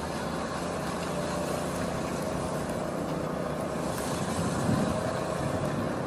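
Concrete mixer trucks' engines running steadily at idle.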